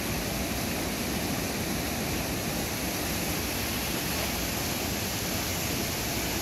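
Fast mountain river rushing over rocky rapids: a steady, even roar of white water.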